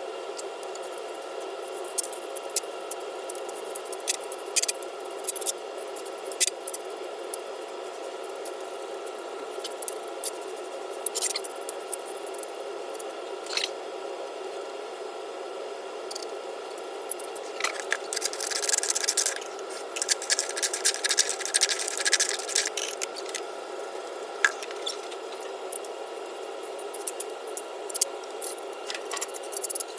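Wet concrete being patched into the floor with a trowel: scattered taps and clicks, and a longer stretch of scraping about two-thirds of the way through, over a steady mechanical hum.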